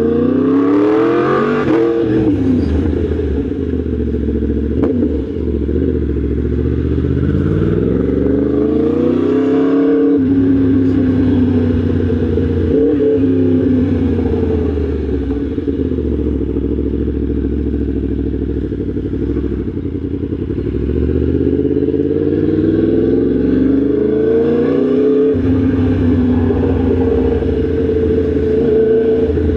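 Yamaha MT-10 SP's crossplane inline-four engine riding along. Its pitch climbs under acceleration and drops back again several times.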